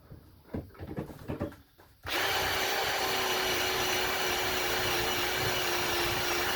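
A few light knocks of handling, then about two seconds in a small power tool switches on and runs at a steady speed with a constant whine, likely brushing or abrading paint off the old hinge.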